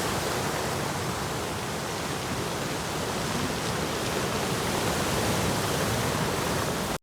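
Rough sea surf: a dense, continuous wash of breaking waves that eases slightly and builds again.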